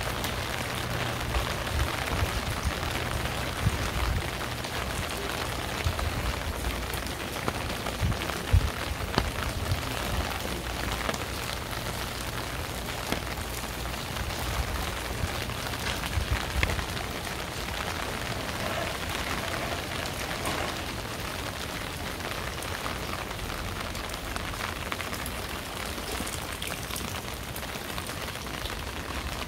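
Steady autumn rain falling and pattering on surfaces, many close drops ticking over an even hiss, with a low rumble underneath. A few louder drop ticks stand out in the first half.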